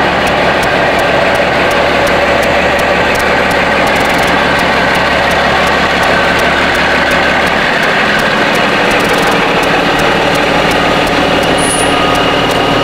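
Heavy diesel truck engines running close by, a loud steady drone; the deepest rumble falls away a little over halfway through.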